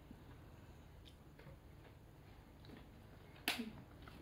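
Quiet eating and food-handling sounds: a few faint soft clicks, then a sharper click about three and a half seconds in.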